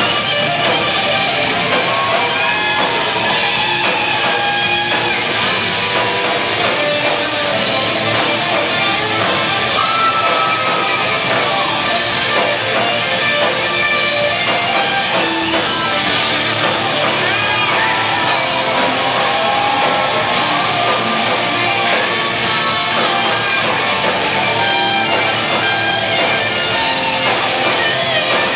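Live rock band playing loud and steady: distorted electric guitars over drums and cymbals.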